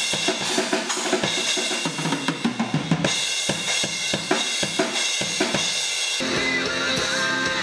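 Rock drum kit played hard in a studio: kick, snare and cymbal hits in a fast, busy pattern. About six seconds in, the sound turns into steadier full-band music.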